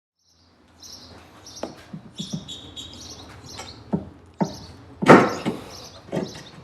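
Silent at first, then birds chirping in the background while a series of sharp knocks and clanks sounds as a car chassis brace is worked into place, the loudest about five seconds in.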